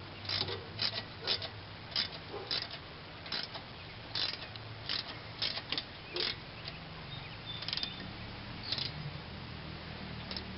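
Ratchet wrench clicking in short, uneven strokes, about one to two clicks a second, as the brake caliper bolts are tightened; the clicking stops near the end.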